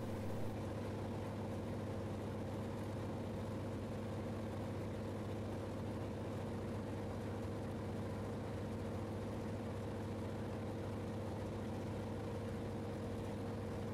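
Steady, unchanging engine drone of an aircraft heard from inside its cabin: a low hum with higher tones above it.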